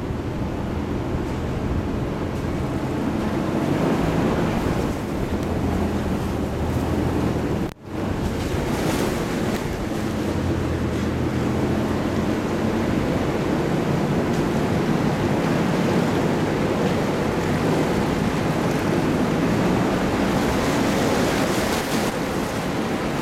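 Toyota 4Runner driving off-road on a dirt trail: a steady low engine drone under a loud rushing noise of tyres and wind on the microphone. The sound drops out for a moment about eight seconds in.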